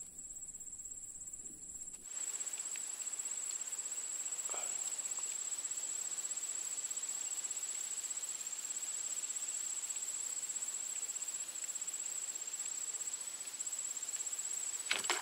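Insects trilling: one continuous high-pitched trill that pulses rapidly and evenly, over a soft hiss. It grows fuller about two seconds in.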